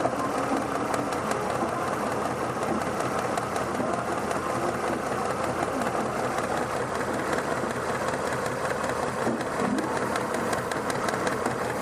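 Gasoline engine idling under an open hood with a rapid, even ticking over a steady hum. The engine has a vacuum leak around a fuel injector that the mechanic is trying to pinpoint.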